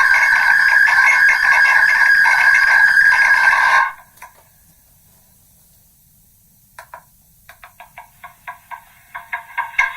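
Megaphone loudspeaker playing back a voice recording that has been re-recorded through megaphones many times over, eroded into harsh, distorted, buzzing sound with no intelligible words. It cuts off sharply about four seconds in, and after a quiet gap, short blips start near seven seconds and come faster and faster as the playback builds up again.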